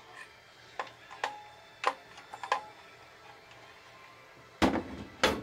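A few sharp clicks and light knocks from handling a cordless circular saw's blade guard and housing, with the motor not running, then two louder clunks near the end as the saw is shifted on the table.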